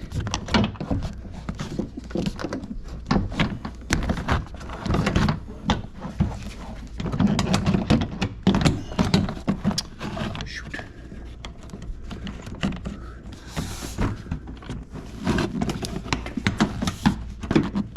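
2005 Jeep Liberty front door trim panel being fitted back onto the door: a run of irregular plastic knocks, thunks and clicks as the panel is seated and its clips are pressed in, heaviest in a few bursts and easing off for a few seconds past the middle.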